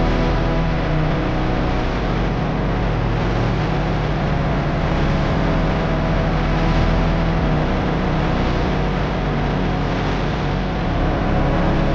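Motorcycle engine running steadily, with road noise, as it rides along.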